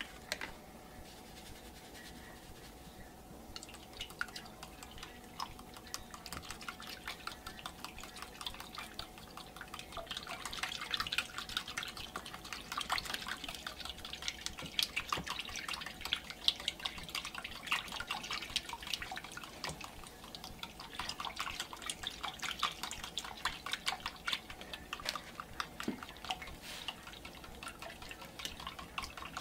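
A fork stirring jerky spices and cure into ice water in a bowl: quick liquid clicks and small splashes, busier from about ten seconds in.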